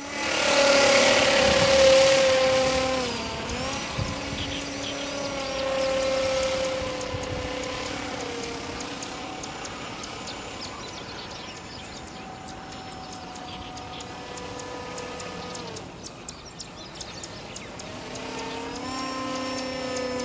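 Small model Magnus-effect aircraft in flight: its motor gives a steady pitched whine that dips and recovers in pitch a few times. The whine is loudest in the first few seconds, weakens about 16 seconds in and strengthens again near the end.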